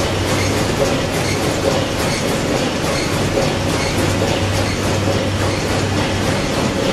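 Engine-room din of a huge 14-cylinder inline two-stroke marine diesel running: a loud, steady mechanical clatter over a constant low hum and a steady higher drone.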